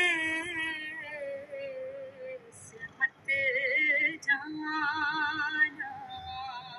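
A woman singing solo: several long held notes with vibrato, in phrases broken by short breaths.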